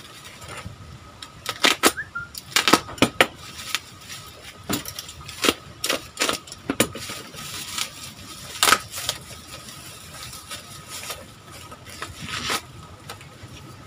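Plastic bubble wrap and packaging crinkling and crackling as it is pulled off a small parcel by hand: an irregular run of sharp crackles and snaps.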